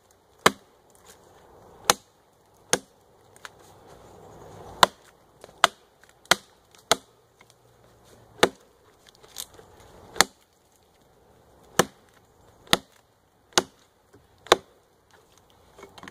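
Woodcraft axe with a light head chopping into a log, about fourteen sharp strikes at an uneven pace of roughly one a second.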